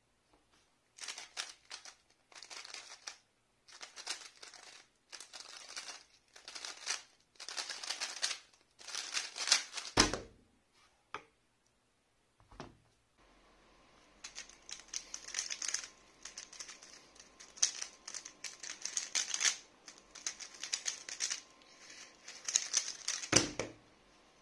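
A 3x3 speedcube turned very fast, its layers clacking in quick flurries for about nine seconds, two solves in a row. Each solve ends with a sharp thump as the cube is put down and the hands slap the stackmat timer to stop it.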